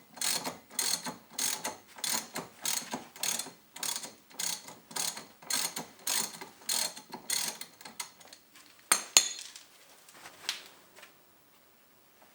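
Socket ratchet clicking in quick, even strokes, about three a second, as the loosened 21 mm brake caliper bracket bolt is spun out. The clicking stops about eight seconds in, followed by one sharp metallic clank, the loudest sound, and a few faint knocks.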